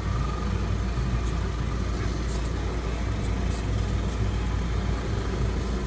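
Vehicle engines idling: a steady low rumble.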